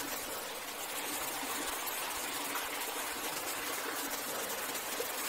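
Steady rushing of a waterfall's water, an even noise with no breaks.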